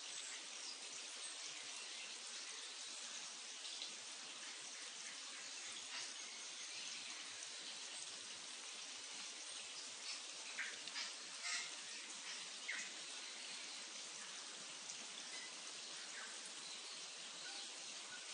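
Faint steady outdoor ambience, an even hiss, with a few short sharp sounds in the middle of the stretch.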